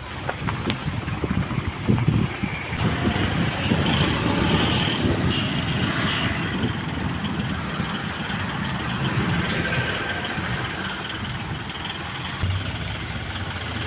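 Isuzu lorry's diesel engine idling steadily, with road traffic noise around it.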